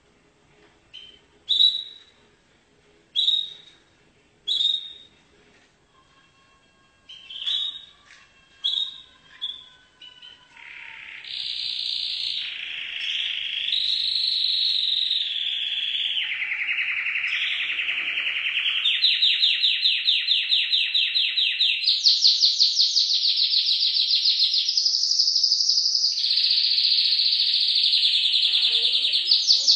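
Canary singing: a few short, separate chirps in the first ten seconds, then a long unbroken song of fast rattling trills that shifts from pitch to pitch and moves higher about two-thirds of the way through.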